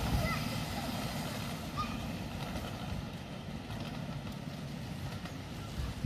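Low rumble of a passenger-carrying miniature railway train running along its track behind the trees, easing off as it goes away, with a few short bird chirps.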